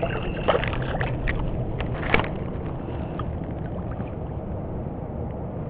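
Steady low wind rumble on the microphone with water against a kayak, broken by a few sharp clicks and knocks in the first two seconds while a small speckled trout is handled aboard.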